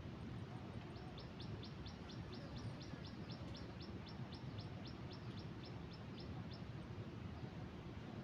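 A bird calling a rapid, even series of short high notes, about four or five a second, for about five seconds, then stopping.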